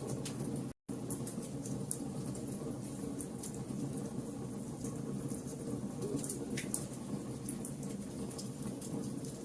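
Wood fire burning with a steady low rumble and scattered sharp crackles and pops. The sound cuts out completely for an instant a little under a second in.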